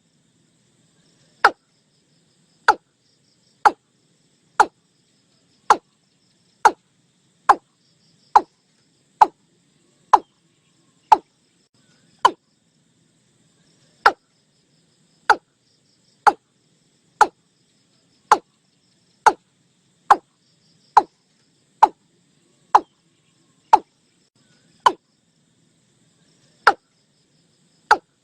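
Watercock calling: a steady series of short, sharp, slightly falling notes, about one a second, with a pause of about two seconds just after the middle.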